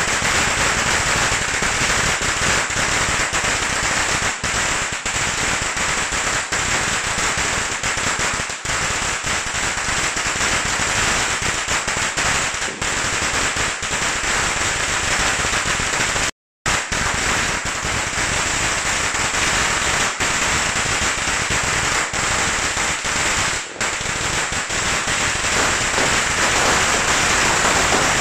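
A long string of firecrackers hung on a pole going off in a continuous, rapid crackle of bangs, cutting out completely for a split second a little past the middle.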